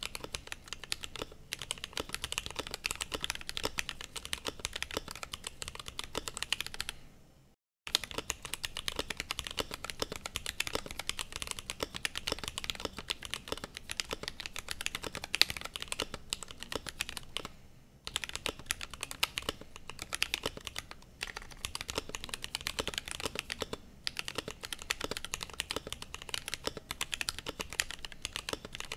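Fast, continuous typing on a Glorious GMMK Pro mechanical keyboard with lubed, filmed Gateron Black Ink V2 linear switches and PBT Cherry-profile keycaps: a dense stream of key clacks. It stops for about a second around seven seconds in, with a few short lulls later.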